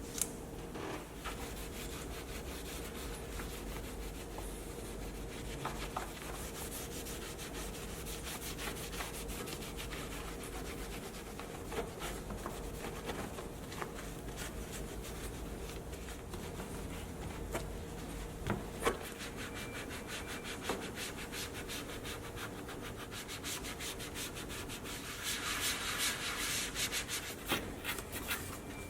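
Rubbing and scrubbing on a car's surfaces during hand detailing, over a faint steady hum, with scattered light clicks and knocks and a louder stretch of scrubbing near the end.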